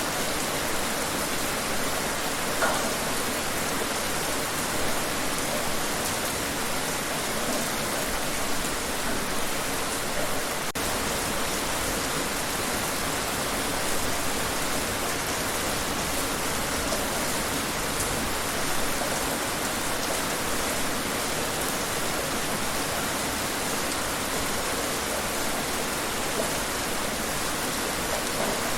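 Steady rain falling outside: a constant, even hiss of rainfall with a few brief louder drops here and there.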